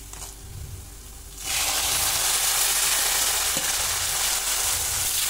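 Chopped tomatoes dropped into hot mustard oil and browned onions in a kadhai. A low sizzle jumps about a second and a half in to a sudden loud hiss as the wet tomatoes hit the oil, then goes on as steady, loud frying.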